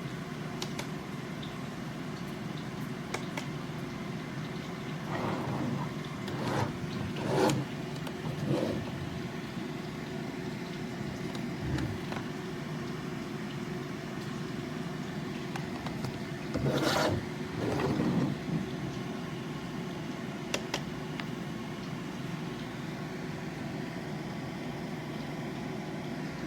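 Steady background hum with a few bouts of handling noise, objects being moved and rubbed, the loudest about halfway through, and a single sharp click a few seconds later.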